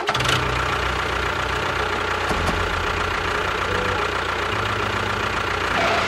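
Tractor engine running steadily with a low, even pulse, starting abruptly. It is a sound effect laid over a model tractor driving.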